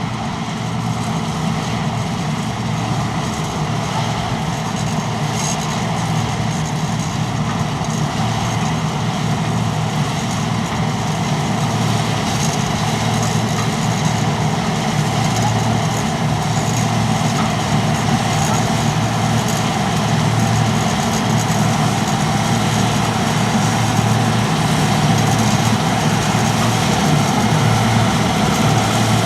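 John Deere 2264 combine harvester running steadily while harvesting: a diesel engine drone with the hiss and rattle of the threshing machinery, slowly getting louder.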